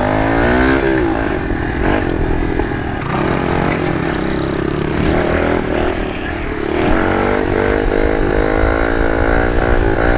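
A Kawasaki KLX110 pit bike's small single-cylinder four-stroke engine running at speed on a paved road. The pitch climbs in the first second, drops as the rider shifts up, holds, then rises again from about two-thirds through as he accelerates.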